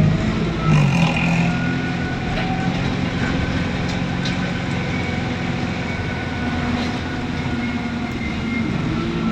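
Diesel engine of an ADL Enviro400 double-decker bus running with a steady low note, with a louder surge about a second in.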